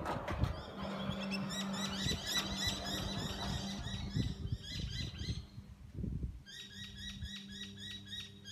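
Motorised telescopic sliding gate opening, with a steady low motor hum and low rumbling as the leaves roll along the track. Rapid repeated bird chirps, about four a second, sound over it, pausing briefly about two-thirds of the way through.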